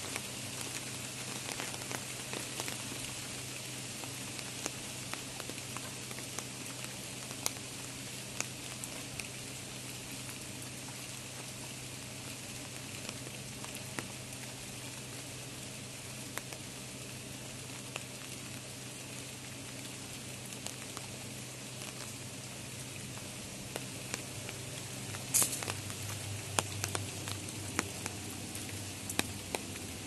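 Steady rain falling, with many scattered drops and drips tapping. The taps come louder and more often near the end.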